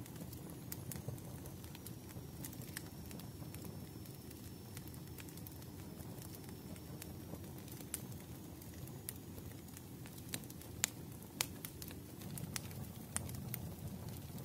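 Wood fire crackling: a steady low rush of burning logs with irregular sharp pops and snaps scattered throughout, a couple of louder pops about two-thirds of the way in.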